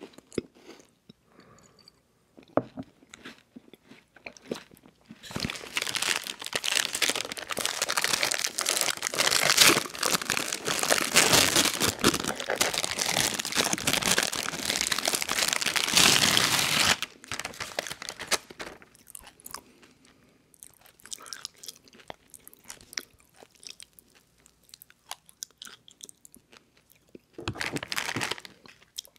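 Plastic snack-bar wrapper crinkling loudly for about twelve seconds as a Rice Krispies Treats bar is unwrapped, with quieter handling noises around it and a short crackling burst near the end.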